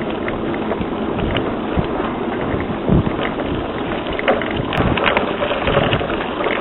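Wind buffeting the microphone as a steady rushing noise, with scattered small clicks and knocks and one heavier thump about three seconds in.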